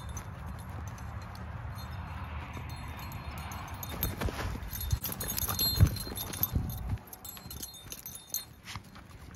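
Footsteps on dry, dead grass with a low steady rumble behind them. The steps are loudest in the middle, and the rumble falls away about seven seconds in.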